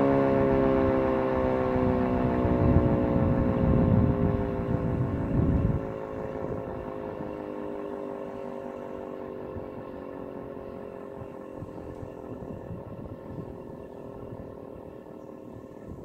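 E57 electromechanical siren winding down at the end of a test alarm: its wail slides slowly down in pitch and fades away as the rotor runs down. For the first six seconds a louder low rushing noise lies beneath it, and it stops abruptly.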